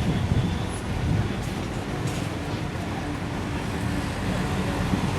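A motor vehicle's engine running steadily, with a low hum and a faint background of road traffic.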